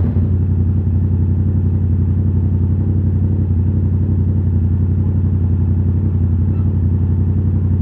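Yamaha MT-07's parallel-twin engine idling steadily with an even, low pulse.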